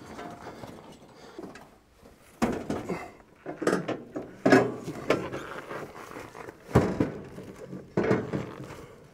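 A mini-split outdoor condenser being lifted and set onto a metal wall-mount bracket: a run of heavy clunks and knocks, about five loud ones, with scraping and handling noise between. Before them, a couple of seconds of small clicks and rattles.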